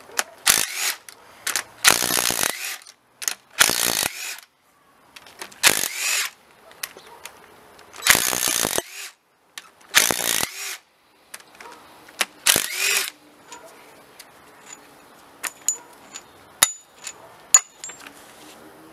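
Impact wrench spinning already-loosened cylinder head bolts out of a supercharged GM 3800 V6, about seven short bursts one after another. Light metallic clicks and clinks follow near the end as the bolts are handled.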